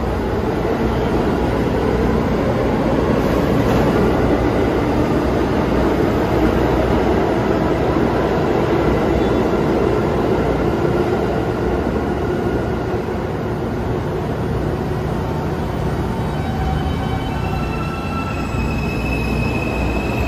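A New York City subway train running through the station with a loud, steady rumble. About three-quarters of the way in, several high, steady squealing tones from its steel wheels join in.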